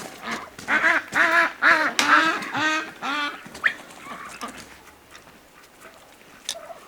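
Domestic duck quacking in a quick series of about seven loud quacks that fade out, followed by quieter yard noise with a couple of sharp clicks.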